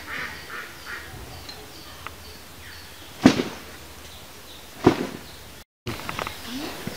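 Two sharp knocks about a second and a half apart, over a steady outdoor background.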